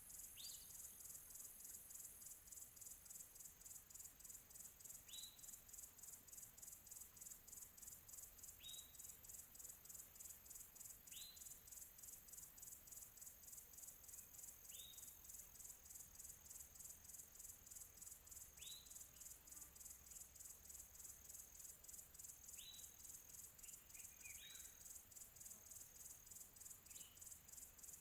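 Quiet night-insect chorus of crickets chirping in a steady, fast pulsing rhythm. Over it, a bird gives short, high call notes that slide downward, one every few seconds.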